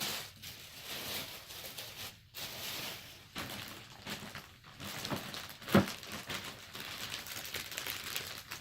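Packaging rustling and crinkling as it is handled, with small clicks and one sharper knock about six seconds in.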